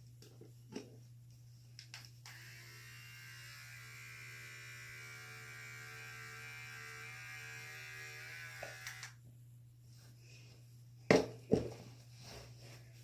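A small handheld electric appliance buzzing steadily at one pitch for about seven seconds, then stopping. Near the end come two loud, sharp knocks about half a second apart, over a steady low hum.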